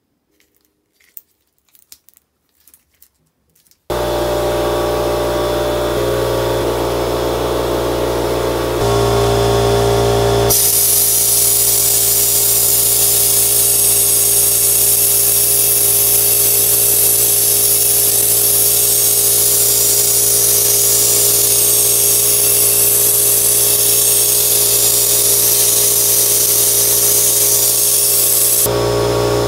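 Sandblasting cabinet derusting a steel wrench. After a few faint handling clicks, a machine starts with a steady hum about four seconds in. From about ten seconds in, the blast gun's jet of air and abrasive hisses loudly and steadily, then stops near the end, leaving the hum.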